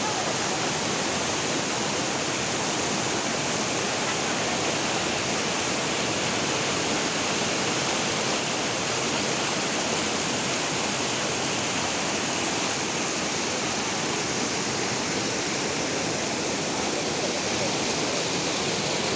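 Steady rushing of falling water from Kempty Falls, a natural waterfall.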